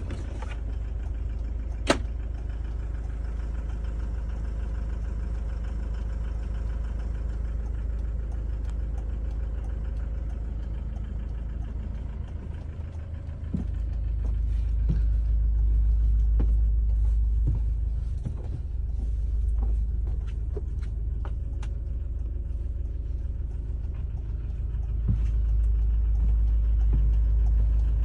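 Irisbus Way 50C18 minibus's four-cylinder turbodiesel idling, a steady low rumble heard from inside the passenger cabin. A sharp click comes about two seconds in, and a few light knocks follow later.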